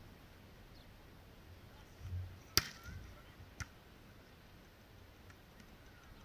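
A sharp smack of a hand striking a beach volleyball, just after a short low thud, then a second, weaker hit about a second later.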